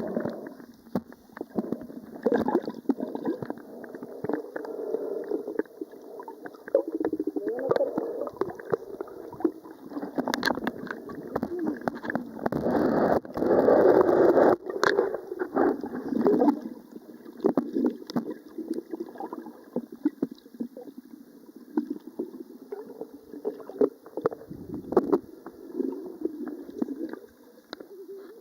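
Water sloshing and splashing close to the microphone, uneven, with many small splashes and a louder stretch about halfway through.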